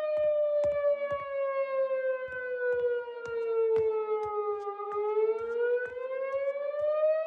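Outdoor tornado warning siren wailing as one long tone that slowly falls in pitch and then rises again near the end, with short irregular knocks underneath.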